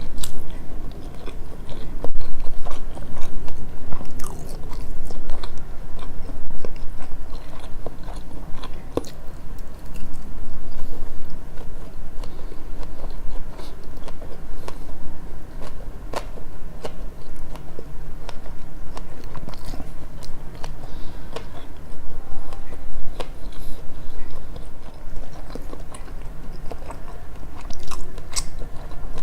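Close-miked chewing of sushi, with many small mouth clicks and smacks throughout, over a low steady hum.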